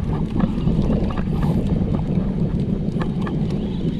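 Small outrigger fishing boat's engine running steadily, a low even drone, with wind buffeting the microphone.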